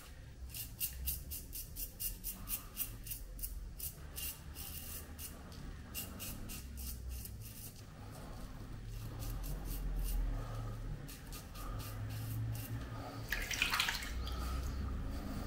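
Safety razor scraping through lathered beard stubble in quick short strokes, about three a second, in runs with short pauses. Near the end comes a brief splash of water as he bends to the sink.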